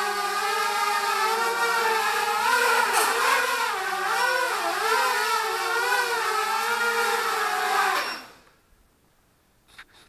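Mini hexacopter with six inverted motors whining in flight, the pitch wavering up and down as the throttle changes, then spinning down and stopping about eight seconds in. Two faint clicks near the end.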